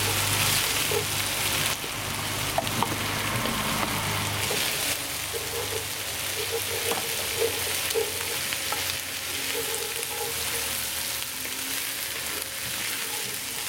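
Diced celery, potatoes and onions sizzling in a cast-iron Dutch oven, stirred with a wooden spoon that scrapes and knocks now and then. The sizzle is loudest in the first couple of seconds as the cold celery goes in.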